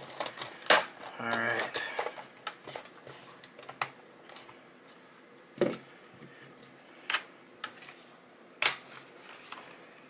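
Scattered plastic clicks and taps from a Lenovo ThinkPad T520's keyboard as it is pressed and seated into the laptop's palmrest by hand, and the laptop is handled.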